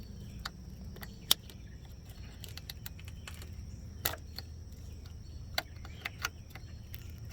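Scattered sharp clicks and light taps of small plastic and metal parts being handled while the coolant level sensor wire is tucked back and its connector worked into place, the loudest click about a second in, over a steady low hum.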